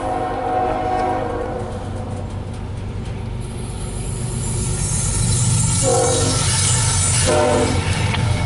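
CSX freight locomotive's air horn: a held chord fading out over the first second or two. The rumble and rail hiss of the train then build as it draws near, broken by two short horn blasts, the second a little over a second after the first.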